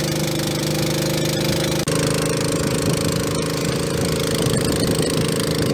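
Outboard motor of a small wooden river boat running at a steady pace. There is a brief break about two seconds in, after which it runs on at a slightly different pitch.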